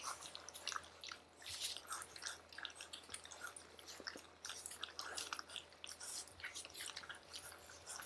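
Several golden retriever puppies eating crumbly food from a shared dish: faint, irregular chewing and crunching, a quick patter of small crackles.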